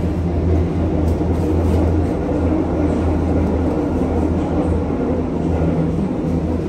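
Interior running noise of a Berlin U-Bahn HK-type small-profile metro car in motion: a steady low hum over the continuous rumble of wheels on rails.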